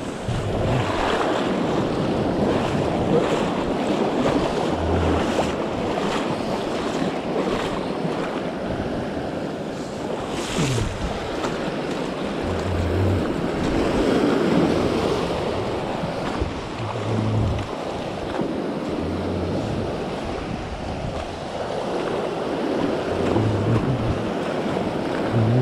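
Sea surf washing in over a rocky shore, swelling and easing wave by wave, with gusts of wind buffeting the microphone.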